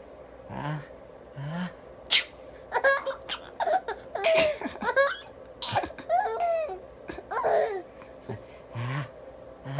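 A man's pretend sneeze: two low drawn-out 'ah' sounds, then a sharp loud burst about two seconds in. A baby then laughs in high-pitched giggles for several seconds.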